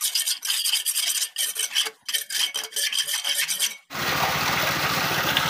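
A metal scraper blade rasping over and over against a concrete fishpond wall, scraping off dried algae. About four seconds in it gives way to a steady rush of water pouring from a pipe into the concrete pond.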